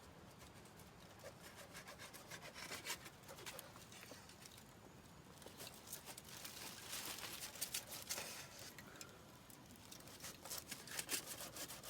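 Wood campfire crackling faintly, with scattered sharp pops and snaps, busiest in the middle of the stretch and again near the end.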